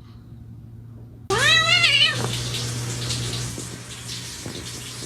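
A domestic cat gives one long meow, rising then falling in pitch, starting suddenly about a second in, over a steady hiss.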